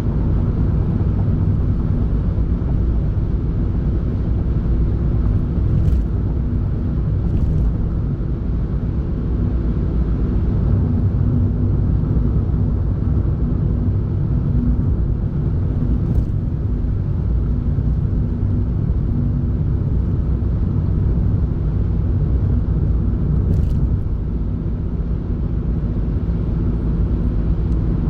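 Steady low rumble of a car's engine and tyres on the road, as heard from inside the moving car, with a faint steady hum and a few faint ticks.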